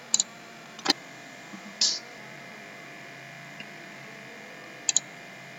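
Computer mouse clicks: a quick double click at the start, a single click about a second in, and another quick double click near the end, over a steady faint electrical hum.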